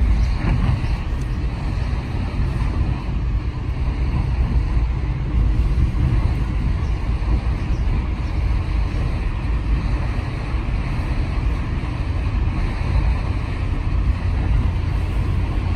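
Steady engine and road noise inside the cabin of a moving car, with tyres running on a wet road.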